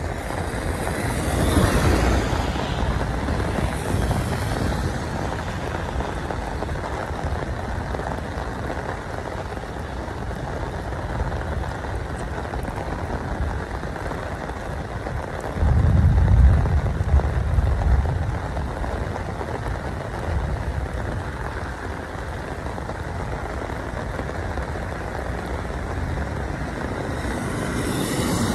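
Steady rain noise by a wet road, with cars driving past on the wet tarmac: a hiss of tyres on water swells about two seconds in and again near the end. A low rumble of a couple of seconds comes just past the middle.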